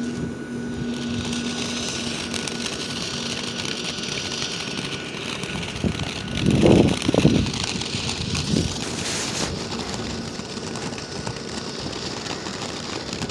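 A lit firework hissing steadily for several seconds, with a brief low rumble about halfway through.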